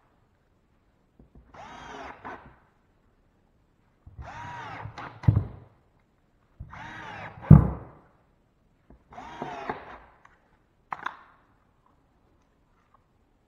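Cordless drill/driver driving drywall screws into a drywall patch, five short runs with the motor whine rising and falling in pitch. Two of the runs end in a sharp knock, the loudest sounds.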